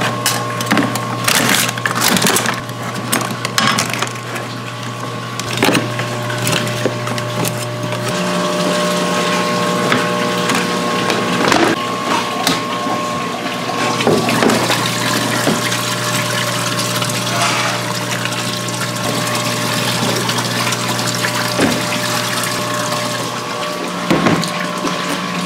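Clicks, scrapes and knocks of abalone shells being scrubbed with a brush in a plastic mesh basket, then of the basket and its lid being handled and strapped shut, over a steady machine hum.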